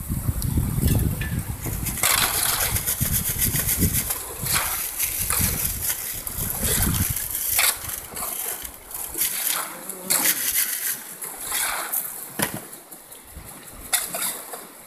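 Shallow river water rushing over rocks. Scattered splashes and the scrape and clack of a shovel digging gravel in the streambed run through it, with a low rumble during the first half.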